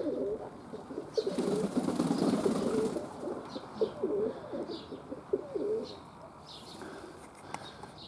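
Domestic pigeons cooing, a run of repeated throaty, wavering coos that fade out about six seconds in, with a few short high chirps from small birds.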